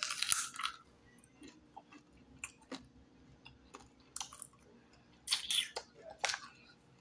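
A person biting into a piece of crunchy deep-fried battered turtle, with a loud crunch at the bite. Close-up chewing follows, with scattered crisp crunches and a louder burst of crunching about five seconds in.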